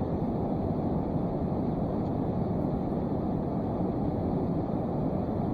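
Steady low rushing of flowing river water, with no distinct events.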